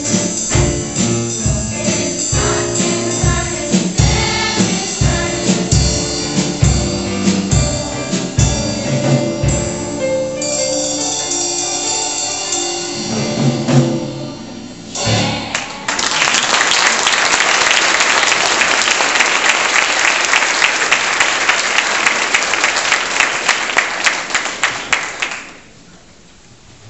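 A choir sings a song with drums, which ends on a final beat about halfway through. Audience applause follows and lasts about ten seconds before dying down near the end.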